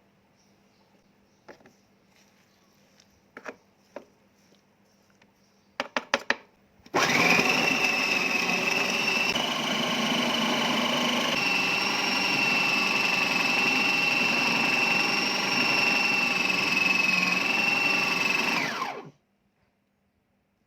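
Electric food processor running steadily with a high whine for about twelve seconds, then switching off. A few clicks come before it starts.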